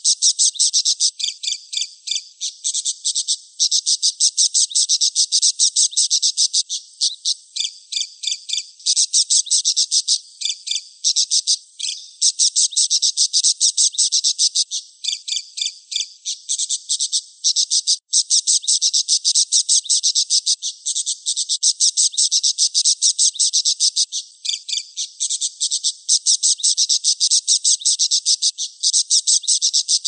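Budgerigar warbling: a fast, nearly unbroken chatter of high chirps, clicks and trills, with a few brief breaks.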